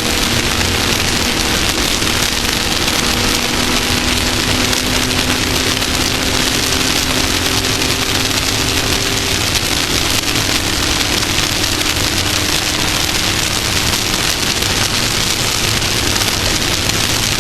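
Off-road race vehicle under way: a steady engine note beneath a loud continuous rushing hiss, the engine tone fading into the hiss about halfway through.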